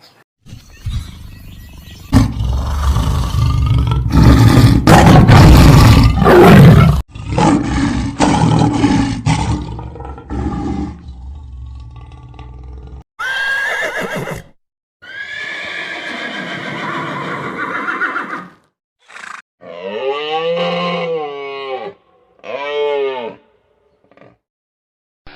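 A run of different animal calls cut one after another: loud rough calls in the first half, then several pitched calls, ending with two calls whose pitch rises and then falls.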